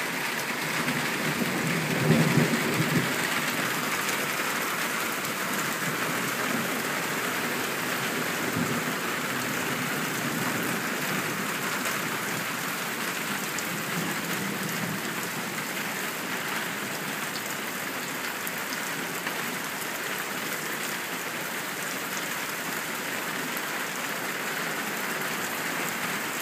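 Heavy rain pouring down steadily, splashing on the ground and on the metal lid of a gas grill. About two seconds in comes a brief, louder low rumble, and fainter ones follow later.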